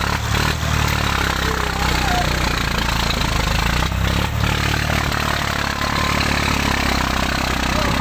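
Tractor engine running with a steady low drone, while several men call and shout over it.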